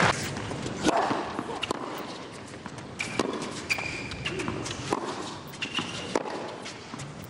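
Tennis rally on a hard court: racquet strikes on the ball about every two seconds, four in all, with short high squeaks between them.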